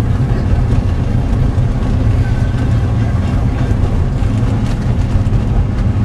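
Steady low rumble of a car driving, heard inside the cabin.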